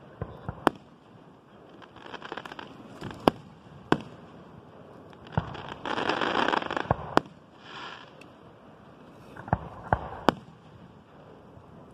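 Aerial fireworks shells bursting overhead: a string of sharp bangs, several in quick succession near the start and again near the end. About six seconds in comes a loud stretch of crackling lasting about a second.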